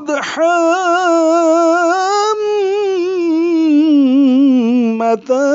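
A reciter's voice chanting the Quran in melodic tajweed style, drawing out one long vowel with a wavering vibrato that slowly sinks in pitch. It breaks off briefly about five seconds in, and the next note is taken up.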